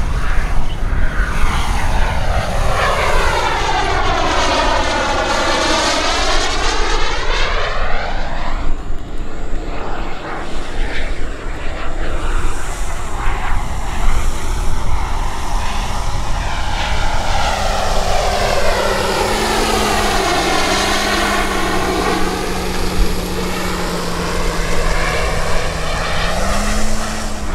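EvoJet 220 turbine of a BVM Renegade radio-controlled model jet, flying two passes overhead. On each pass its whine and rush sweeps down and back up in pitch as it goes by.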